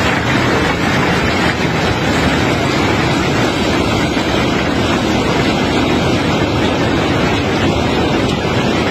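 Cobblestones being unloaded from a barge, heard as a steady, loud rumbling noise from the unloading machinery and moving cargo, with no single impact standing out.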